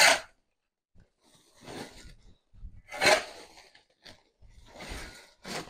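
A shovel scooping dry chicken manure and litter off a concrete floor and tipping it into a sack: a series of short scraping, crunching scoops, the loudest at the start and about three seconds in.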